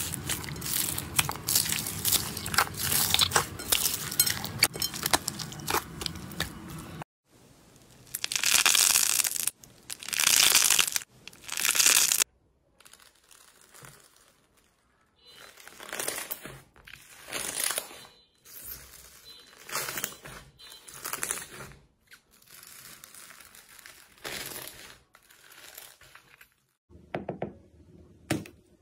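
Foam-bead slime (floam) being kneaded and squeezed by hand, a dense crunchy crackle of beads popping and rubbing. It cuts off suddenly about seven seconds in, followed by swishing, crackling strokes of a hand scraping across bubbly slime, three loud ones and then quieter ones about once a second.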